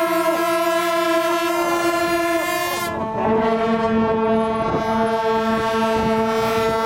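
Several horns blowing long, steady, overlapping blasts, with the pitch of the held notes changing about three seconds in.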